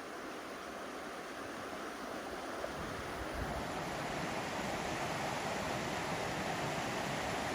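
Haw River water rushing in a steady, even flow that grows gradually louder.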